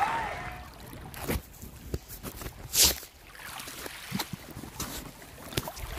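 Shallow seawater splashing and sloshing in short irregular bursts, with one louder splash about three seconds in, as a hooked fish thrashes at the surface and people wade through the shallows.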